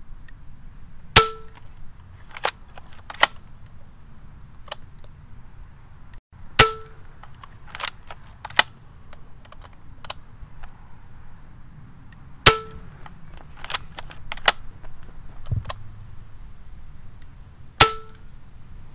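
Hatsan Gladius bullpup PCP air rifle, its barrel shrouded, firing four shots about five seconds apart, pretty quiet. Each shot is a sharp crack with a short ring. Between shots come pairs of lighter clicks as the side lever is cycled to load the next pellet.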